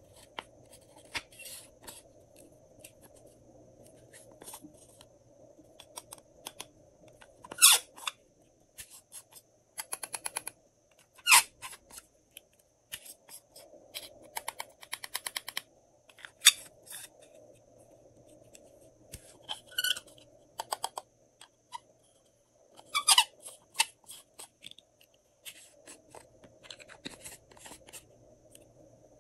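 Glossy slime being squished and worked by hand: scattered sticky clicks and crackles, broken by a few louder, short squeaky squelches of trapped air.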